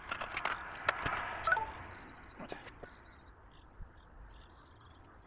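Rapid clicks, knocks and rustling of hands handling parts at a van's cab floor, the sound sped up. It dies down about two seconds in.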